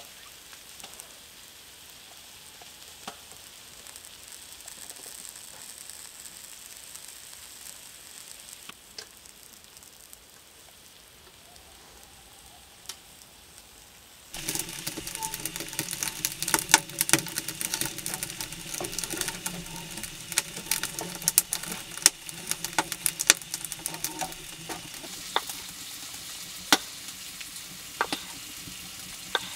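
Faint steady hush, then an abrupt switch about halfway in to close, dense crackling and sizzling from cooking on a lit wood stove, over a steady low hum. Near the end there are a few sharp knocks of a knife cutting through a pickle onto a wooden board.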